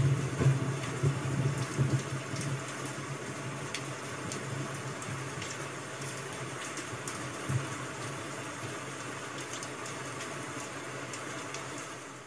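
Rain and crackling firewood ambience: an even hiss of rain with small sharp crackles scattered through it. A few louder low knocks fall in the first two seconds.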